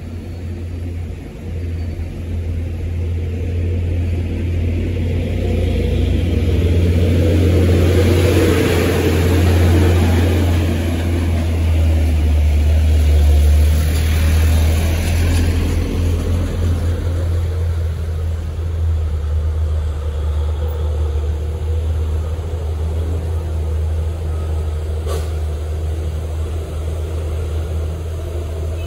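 Diesel engines of heavy trucks and other vehicles running close by in slow traffic: a steady deep rumble, swelling louder for several seconds in the middle as vehicles pass close, then settling back.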